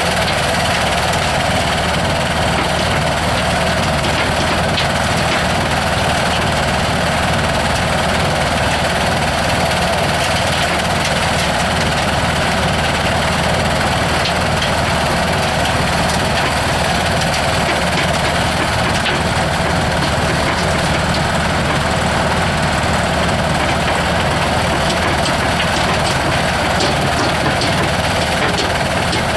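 Engine-driven soil screening machine running steadily, with a constant engine drone and a few faint scattered clicks.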